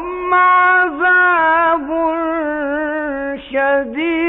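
A male Quran reciter chanting in slow, melodic tajweed style, drawing out long held vowel notes with small ornamental pitch turns. There is a short breath-break about three and a half seconds in.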